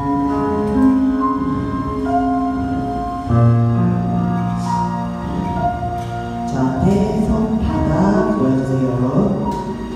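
Music with singing: held chords that change every second or two.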